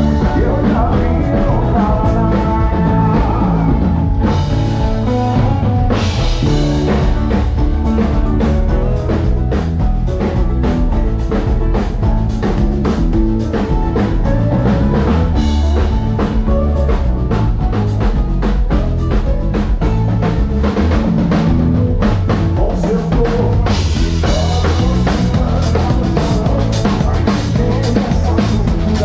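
Live band playing a song: drum kit keeping a steady beat under acoustic guitar and keyboard, with a man's singing voice at times.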